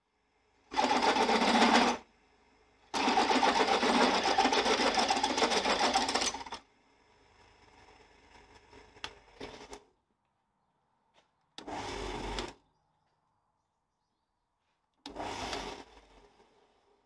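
Benchtop Clarke pillar drill running in separate bursts with a tap in its chuck, power-tapping a thread into a shackle plate. Two longer runs of about one and three and a half seconds come first, then a quieter stretch with a couple of clicks, then two shorter runs.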